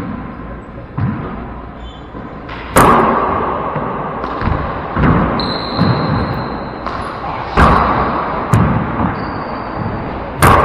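Four-wall handball rally: the rubber ball is bounced twice on the floor before the serve, then sharp, echoing smacks of the ball being struck and hitting the walls every one to two seconds. Sneakers squeak on the wooden court floor in between.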